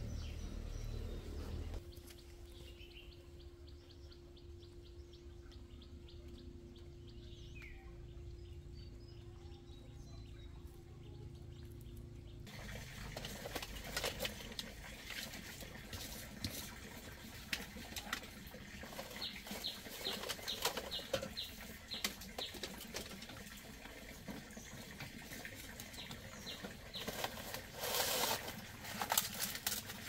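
Knocks and clatter of firewood and pots at a clay wood-fired hearth, with faint bird chirps. Near the end comes a short rushing blow through a bamboo tube to fan the fire.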